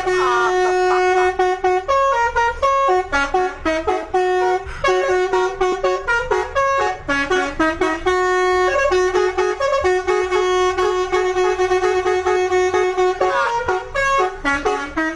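Bus telolet horn, a set of air horns, playing a fast melody of short, loud tooting notes.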